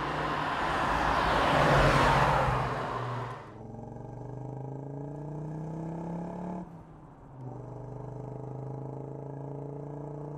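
Audi quattro five-cylinder engine under way: a loud swell of engine and rushing noise peaking about two seconds in, then the engine note climbing steadily under acceleration. After a short break the note runs on at a steadier pitch, and it cuts off abruptly at the end.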